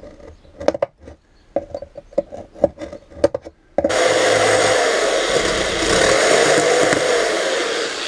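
Irregular taps and scrapes on a wooden panel. About four seconds in, an electric jigsaw starts and runs steadily, its blade cutting through the thin wood of a caravan cupboard.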